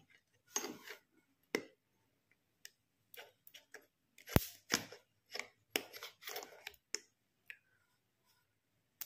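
Small metal tweezer tips clicking and tapping against an LED bulb driver circuit board: irregular sharp clicks with short gaps, one louder tap about four and a half seconds in.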